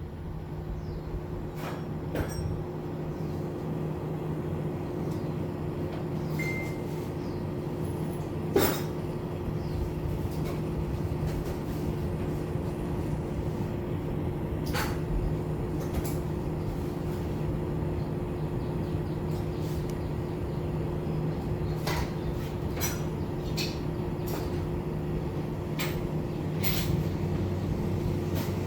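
Restored Sharp air conditioner running under test: a steady mechanical hum with two held tones that swells over the first few seconds as the unit comes up to speed, with scattered light clicks and ticks.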